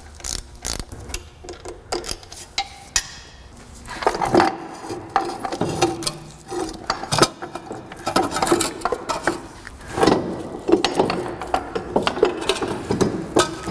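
Irregular metallic clinks, clicks and scrapes of hand tools and sockets on bolts under a car, with brief steadier stretches from about four seconds in.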